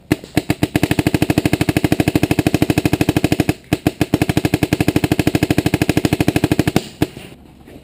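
Paintball marker firing long rapid strings of shots, about a dozen a second, with a short break about three and a half seconds in; the firing stops near the end.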